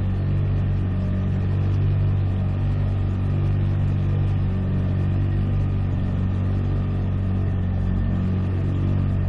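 Freshly rebuilt boat motor running steadily under way, with an unchanging low drone.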